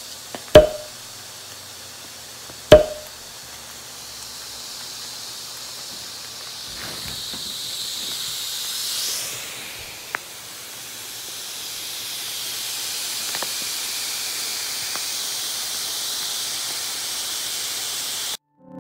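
Steady hiss of air being drawn into a vacuum-compressed Casper memory foam mattress as it expands in its plastic wrap, swelling about eight seconds in and cutting off suddenly near the end. Two sharp taps sound in the first few seconds.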